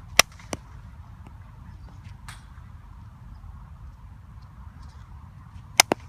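Softball bat striking a softball twice, two sharp cracks about five and a half seconds apart, each followed quickly by a softer knock.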